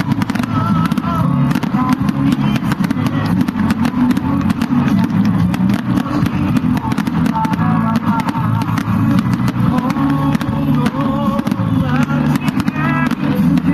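Fireworks display with rapid crackling over a steady low rumble, without single booms standing out, and music playing along.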